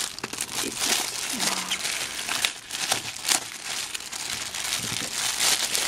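Clear plastic wrapper crinkling and crackling as hands pull it off a stack of mini memo pads, a dense run of irregular crackles.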